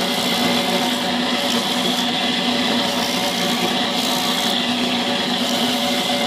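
Motorized coconut grater shredding a coconut half pressed against its spinning blade. A steady motor hum runs under a continuous rasping of the meat being grated.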